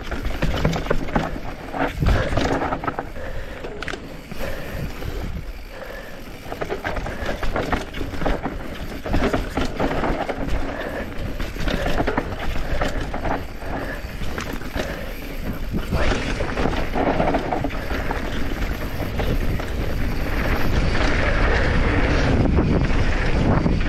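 Downhill mountain bike descending a rough dirt trail at speed: tyre noise on dirt and rocks, with the chain and frame rattling and knocking over bumps, and wind rushing over the camera microphone. The noise grows louder over the last few seconds.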